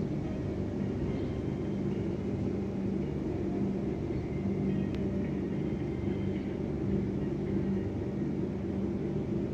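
Steady low rumble with a low, even hum throughout.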